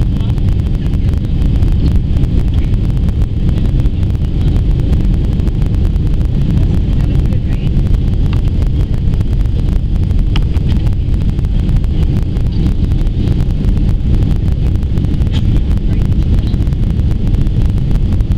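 Steady, deep roar inside the cabin of a Boeing 767-300 on final approach with flaps extended: engine and airflow noise.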